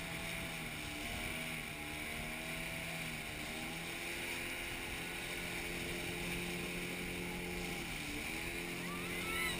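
The engine of a towing speedboat running at steady speed over wind and rushing water. Its pitch dips briefly about 8 seconds in, then picks up again.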